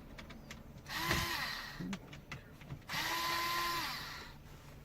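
Cordless power screwdriver running in two bursts, each spinning up, holding and winding down, backing out the small Phillips screws of a steering-wheel clock spring: a short burst about a second in and a longer one about three seconds in. Light clicks come between the bursts.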